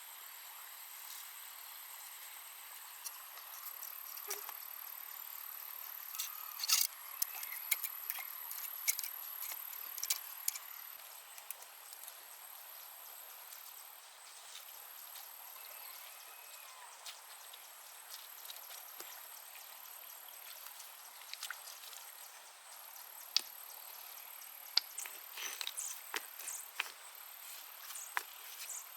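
Insects trilling steadily at a high pitch over a faint forest hiss. Scattered sharp clicks and taps come in clusters, about a quarter of the way in and again near the end.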